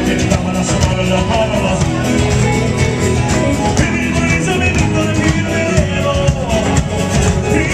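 Live band playing a song: guitars and drums with a singer, loud and continuous.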